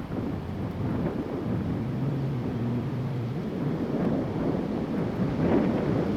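Strong gusting wind during a windstorm, buffeting the microphone with a low rumble that swells again near the end.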